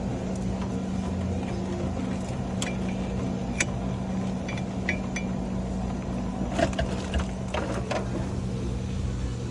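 Steady machine hum with a low rumble, broken by a few light clicks and a cluster of knocks in the second half.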